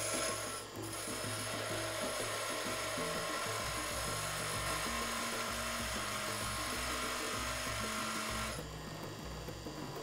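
Bench grinder grinding a steel key blank: a steady, dense grinding hiss with a whine from the spinning wheel. The grinding stops about eight and a half seconds in.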